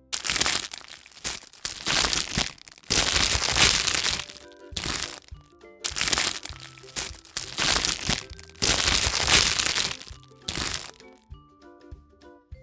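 Crinkling and crackling of a chocolate surprise egg's foil wrapper being torn open and unwrapped by hand, in a run of loud bursts that stops near the end.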